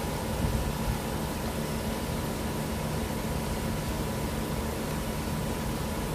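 Steady machine hum and hiss of a workshop, with a few light knocks of tools on metal in the engine bay about half a second in.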